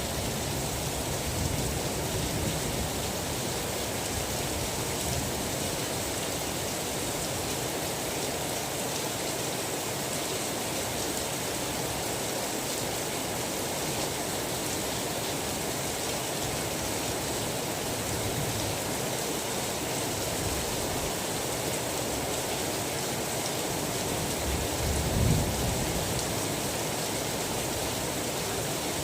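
Steady rain falling, an even hiss, with low rumbles of thunder, the loudest a little before the end.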